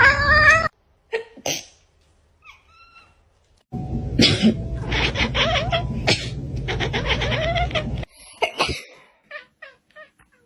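A person sneezing and a cat meowing in short rising calls. The sound comes as several spliced clips, with the background noise cutting in and out abruptly.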